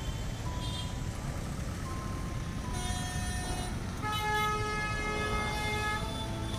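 Road traffic with car horns: a short honk about three seconds in, then a longer, louder honk from about four to six seconds, over a steady rumble of passing vehicles.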